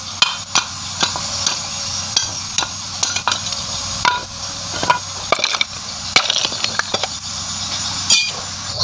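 Metal engine parts and tools clinking and clattering as they are handled, a string of irregular sharp clicks, some with a brief high metallic ring, over a steady hiss.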